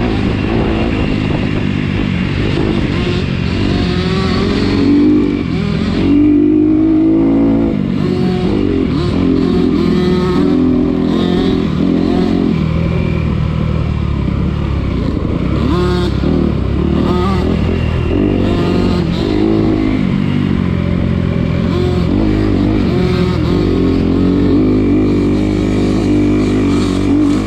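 Off-road motorcycle engine running under way, revving up and down so that its pitch keeps rising and falling with the throttle.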